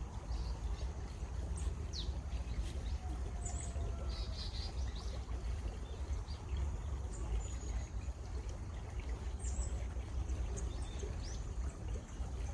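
Birds chirping in short, scattered high notes over the steady rush of flowing water, with a low rumble underneath.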